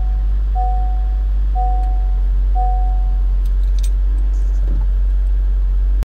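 Car warning chime sounding about once a second, four times, then stopping, over a steady low cabin rumble. A few light clicks follow near the end.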